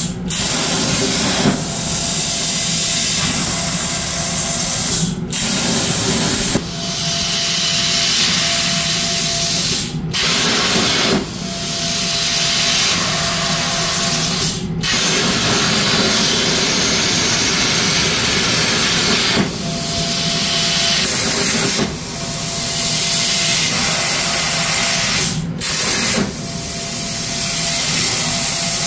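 Powermax 65 plasma cutter on a CNC table cutting the steel of a saw blade: a loud, steady hiss of the arc and air that cuts out for a moment every few seconds.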